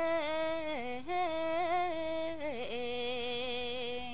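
A single unaccompanied voice chanting a Khmer poem to a lullaby melody, holding one long drawn-out vowel. The note wavers, drops twice in stepwise slides, and settles on a lower held note.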